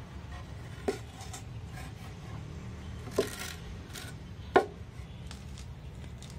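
Three sharp knocks about a second, three seconds and four and a half seconds in, with lighter clicks of handling between, over a steady low hum.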